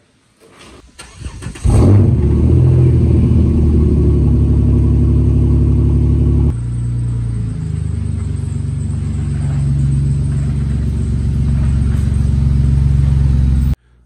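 Jeep Wrangler JK engine starting up about a second and a half in, then running steadily as the Jeep is driven slowly into the garage; the engine note drops a little about six and a half seconds in.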